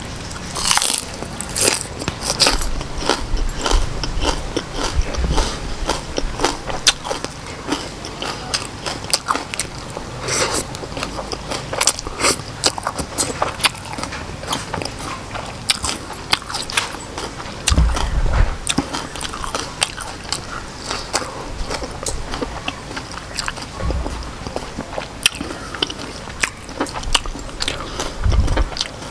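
Close-up mukbang eating sounds: crunching bites and chewing of raw greens, octopus and rice noodles, with many small mouth clicks throughout and a few low thumps.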